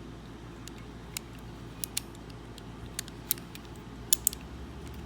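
Antique mortise lock's mechanism being worked by hand: about seven sharp, small metallic clicks at uneven intervals, two close pairs near the middle and end, over a steady low hum.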